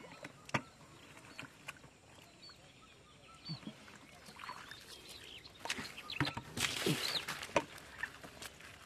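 Shallow water splashing and sloshing, with scattered small sloshes and a louder burst of splashing about seven seconds in.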